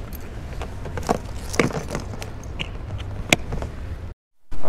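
Scattered clicks and knocks of a motorbike top box and an insulated delivery bag being handled, over a low steady rumble. The sound cuts out to silence briefly near the end.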